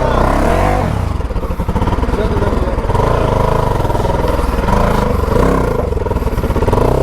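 Motorcycle engine running at low speed, its revs rising and falling a little.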